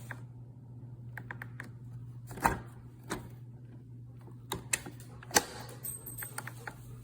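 Scattered clicks and knocks of hard objects being handled, irregular and a few loud, over a steady low hum.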